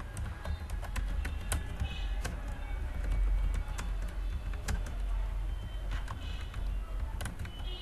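Typing on a computer keyboard: irregular, quick keystroke clicks over a steady low hum.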